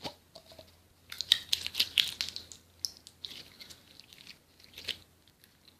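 Jelly cube slime being squished in the hands, giving a run of crunchy crackles and pops, busiest in the first half and then fainter and sparser.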